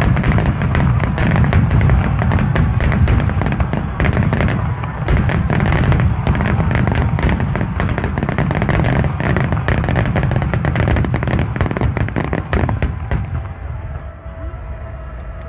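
Aerial fireworks going off in a dense, continuous barrage of booms and crackles, the bursts overlapping with no gaps. The barrage thins and dies away about thirteen seconds in.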